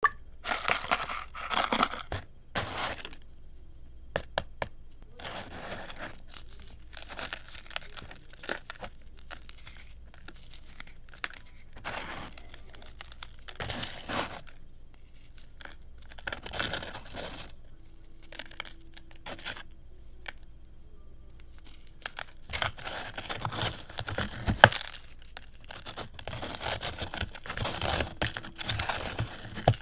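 Dried baking soda crumbles crushed by hand in a plastic tub: very crunchy, crackling breaking in irregular bouts with short pauses between.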